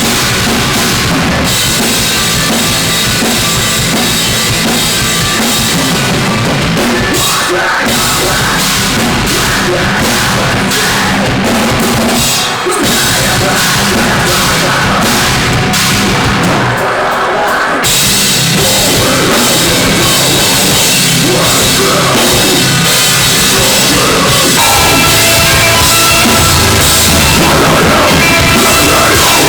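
Metalcore band playing loud heavy music through a live sound rig, with the drum kit to the fore. The sound thickens about halfway through and stays full from there.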